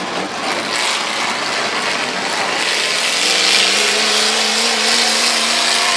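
Several demolition derby cars' engines running and revving together in a loud, steady din; from about three seconds in one engine holds a steady tone above the rest.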